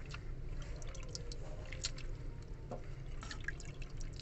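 Close-up eating sounds: wet chewing and lip smacks with scattered small clicks, over a low steady hum.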